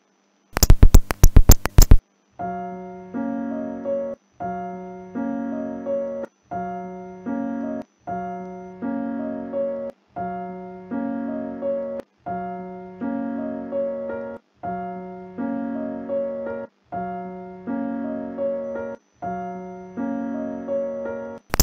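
A quick run of sharp, loud telegraph-key clicks for about a second and a half near the start, then a short electric-piano phrase looping about every two seconds as background music.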